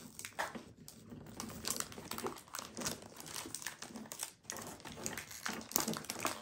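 Hands sliding and flipping through a stack of Pokémon trading cards, a run of irregular soft scrapes and clicks as one card is slid over the next.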